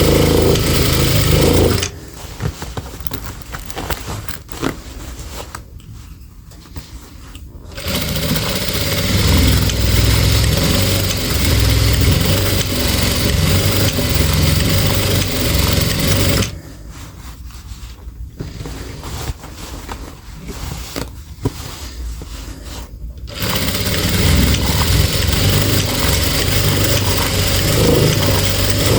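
Sewing machine running in long stretches of stitching, stopping twice for several seconds with small clicks in between: machine darning over worn denim.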